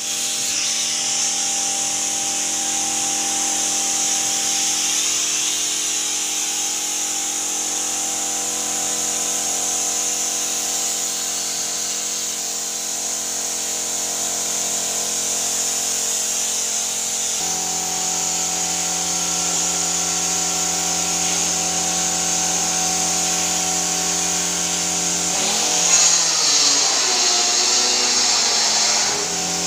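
Compressed-air spray gun hissing as it sprays wood finish, over the steady hum of the air compressor feeding it. The hum changes pitch about two-thirds of the way through, and the hiss grows louder near the end.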